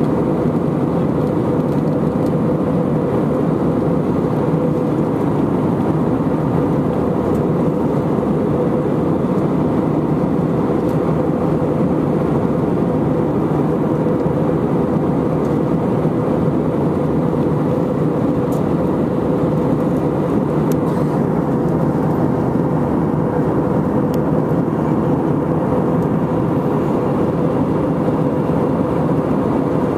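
Steady cabin noise inside an Airbus A319 in flight: engine and airflow noise with a steady droning tone running through it.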